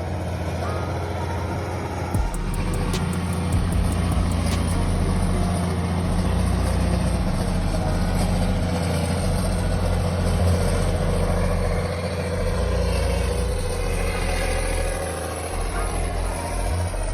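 Skidder's diesel engine running steadily under load, with the rumble and clatter of the machine working.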